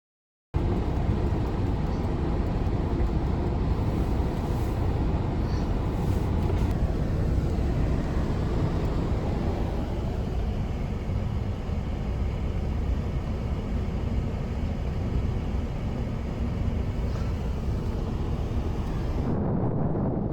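Steady, loud, low rumbling noise of an outdoor field recording, with no distinct tones, changing abruptly near the end.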